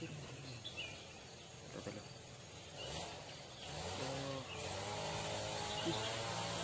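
An engine running, rising in pitch about three seconds in and then holding a steady pitch while growing louder, with a few short high chirps.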